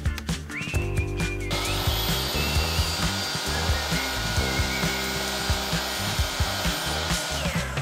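DeWalt sliding compound miter saw spinning up and cutting through wood, its motor whine winding down near the end, over background music with a steady beat.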